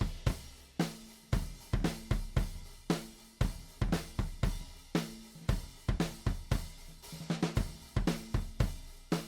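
Drum loop playing back through a drum bus: kick, snare, hi-hats and cymbals in a steady, repeating groove.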